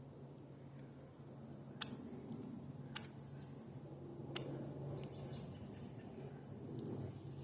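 Small birds at a feeder making three sharp, short clicks spaced about a second apart, with a few fainter ticks after them, over a steady low hum.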